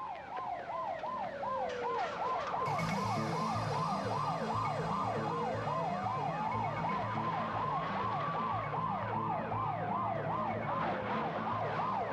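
Police car sirens, several at once: a fast yelp cycling about three times a second overlaps a slower wail that falls, climbs and falls again. A low pulsing rhythm comes in underneath about three seconds in.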